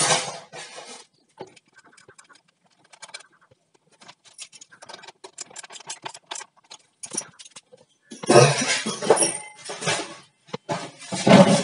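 Hands working on battery wiring: a run of small clicks and ticks of metal terminal hardware and cable ends being handled, then two louder stretches of scraping and rustling near the end.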